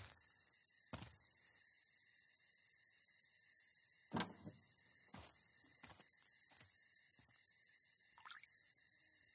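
Near silence: a faint, high, evenly pulsing ambience of about eight pulses a second over steady faint tones, with a few soft knocks, the loudest about four seconds in.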